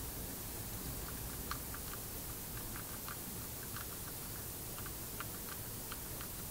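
Guinea pigs chewing food: a quick, irregular series of small crunching clicks, several a second, over a steady background hiss.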